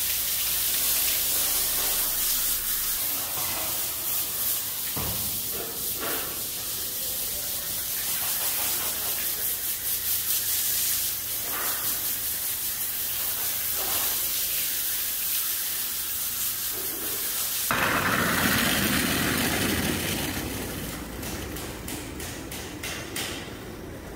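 Water hose spraying a fine, hissing jet onto a horse's wet coat. About three-quarters of the way in it changes suddenly to a louder, lower gush of water running from the hose into a plastic bucket of foamy wash water, which then fades.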